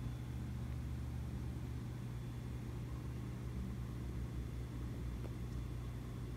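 A steady low electrical-sounding hum with a faint hiss behind it, even throughout, with no other event.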